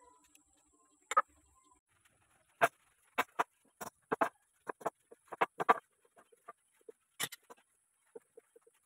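A string of irregular knocks and clicks, about fifteen spread unevenly over several seconds, from tools and parts being handled while a homemade wood lathe is put together.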